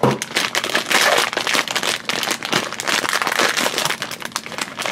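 Foil blind bag crinkling and crackling in the hands as it is opened, a dense run of quick crackles throughout.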